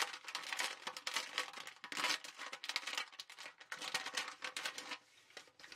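Thin clear plastic bag crinkling as it is opened and handled, in irregular quick crackles that die away about five seconds in.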